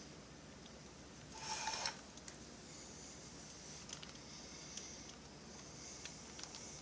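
Small chainsaw parts being handled by hand: a brief scrape about one and a half seconds in, then a few faint clicks.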